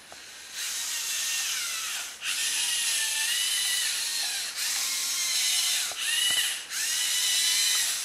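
Geared LEGO NXT motors of a small LEGO Technic robot car whirring as it drives, with a whine that rises and falls in pitch. The motors stop and start again four times in quick succession.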